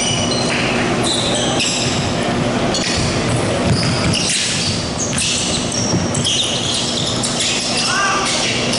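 Basketball game on a hardwood gym floor: many short, high sneaker squeaks as players run and cut up the court, with the ball bouncing, all echoing in a large hall.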